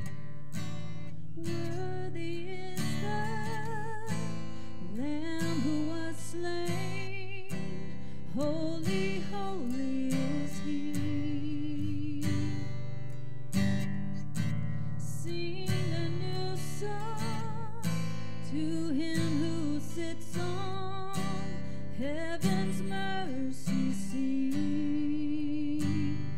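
Worship music: a strummed acoustic guitar over a sustained low accompaniment, with a slow melody line wavering with vibrato above it.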